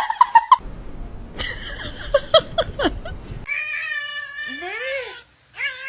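Domestic cat meowing: a run of short chirping meows, then a long, wavering, drawn-out meow, with another one beginning just before the end.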